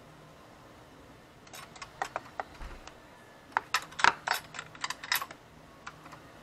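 A run of light metal clicks and clinks, loudest about four seconds in: a steel spring hook puller catching and working on the return spring of a motorcycle's adjustable kickstand.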